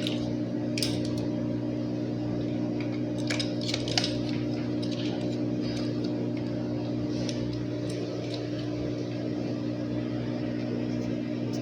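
Light clicks and taps of hard plastic parts being handled as a fan blade is fitted onto a refrigerator's micro fan motor, a few near the start and a cluster about three to four seconds in, over a steady low electrical hum.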